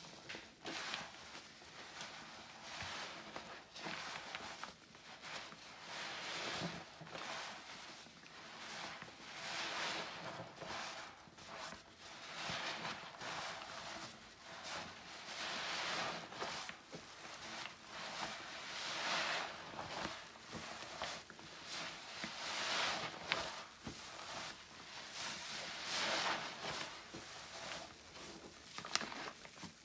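A sponge soaked in soapy floor-cleaner solution being squeezed and released over and over, a wet squelch every few seconds.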